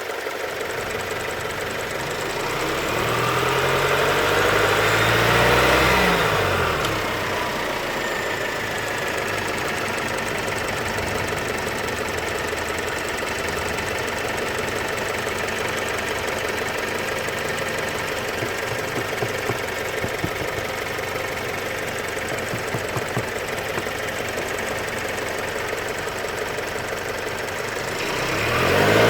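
BMW E87 1 Series engine idling with a rattling, clicking noise, which is the fault being shown. It is revved once a few seconds in and falls back to idle, then starts to rev again near the end.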